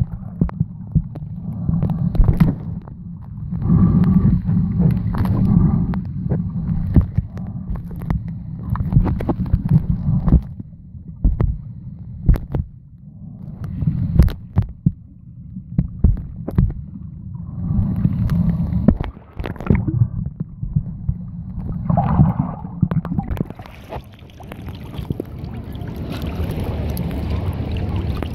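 Muffled underwater sound on a camera held below the surface: an uneven low rumble of moving water with gurgling and many irregular small clicks and knocks. Near the end it turns into a steadier hiss as the camera comes up to the surface.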